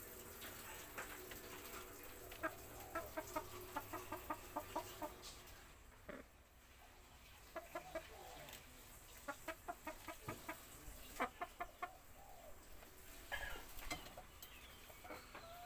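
Caged chickens clucking in quick runs of short clucks, about three a second, several runs with brief pauses between them.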